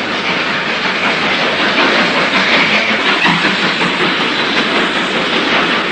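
A steam-hauled train passing close by, a steady rush and clatter of wheels on the rails, loudest in the middle and beginning to die away near the end.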